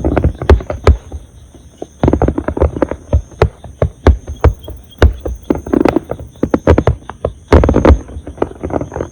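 Aerial fireworks bursting in rapid volleys of sharp bangs, with a short lull between about one and two seconds in.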